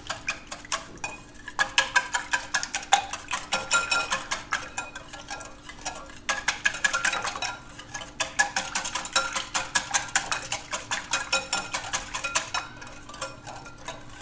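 Wire balloon whisk beating a thin liquid mixture in a glass bowl: fast, rapid clicking of the metal wires against the glass. It stops briefly about halfway through and tapers off near the end.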